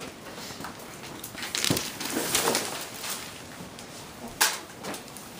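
Wrapping paper rustling and crinkling in bursts, with one sharp click about four and a half seconds in.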